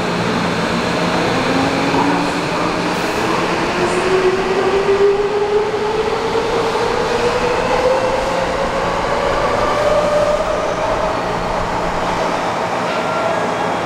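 Subway train accelerating away from the platform: its electric traction motors give a whine that climbs steadily in pitch for about ten seconds, over the rumble of wheels on rail.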